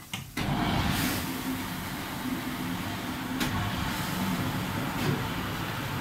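WD-12GLE commercial dishwasher starting its cycle: the pump motor and water spray come on suddenly about half a second in and run steadily with a low hum under a broad rushing hiss.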